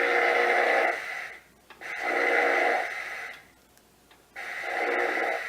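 Simulated steam chuffing from a Marx Sound O' Power tender: three long, slow hissing chuffs with short silent gaps, as the lightweight plastic Marx 1666 locomotive labours under too heavy a train.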